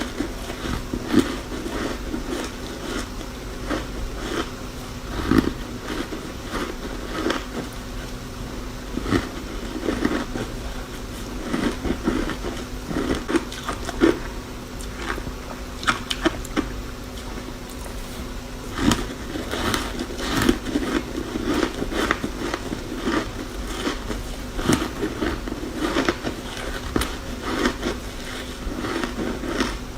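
Close-up biting and chewing of ice pieces coated in matcha powder: repeated irregular crunches and cracks, over a faint steady low hum.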